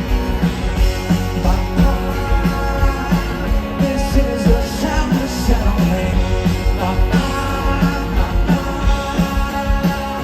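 Live rock band playing an upbeat song: a quick, steady drum beat under bass and electric guitars.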